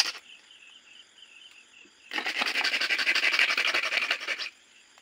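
A hacksaw blade sawing through the hard plastic chassis of a toy model tractor in quick back-and-forth strokes. The sawing starts about two seconds in and stops shortly before the end. Crickets chirp faintly and steadily in the background.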